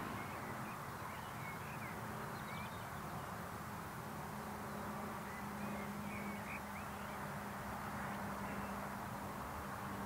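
Quiet countryside ambience: a steady background hiss, a low steady hum, and scattered faint bird chirps.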